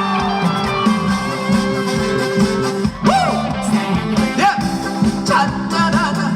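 Instrumental interlude of a live trot song played through a PA: a steady band backing with a lead melody line that slides up and down in pitch several times.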